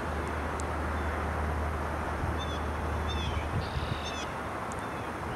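Steady low rumble of a distant CSX double-stack intermodal freight train rolling by, with a few groups of short, high bird calls over it in the middle.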